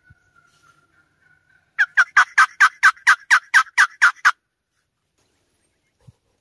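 Hen turkey calling: a loud run of about a dozen sharp, evenly spaced yelps, about five a second, starting about two seconds in and stopping after about two and a half seconds.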